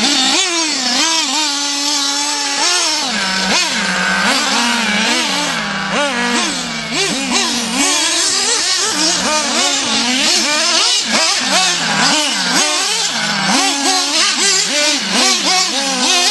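An engine revving up and down over and over, its pitch rising and falling every second or so without a break.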